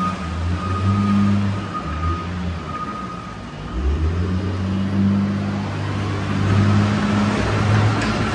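Caterpillar wheel loader's diesel engine running and revving as the machine reverses and then drives forward to push a trash pile. Through the first few seconds its reverse alarm beeps about once a second; the engine dips briefly and then picks up again as the loader moves forward.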